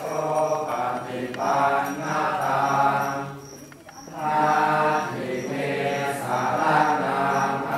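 A group of Buddhist monks chanting in unison on a steady low pitch, with a brief pause about three and a half seconds in before the chant resumes.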